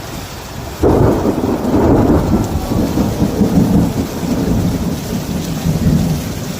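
Thunder breaks suddenly about a second in and rumbles on for several seconds, easing near the end, over steady rain.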